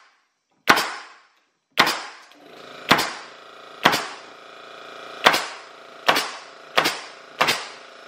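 Senco SN70 pneumatic framing nailer firing 16-penny nails into wood: eight sharp shots about a second apart, coming quicker near the end. About two seconds in, the Emglo twin-tank electric air compressor starts and runs steadily under the shots, refilling as the nailer draws air.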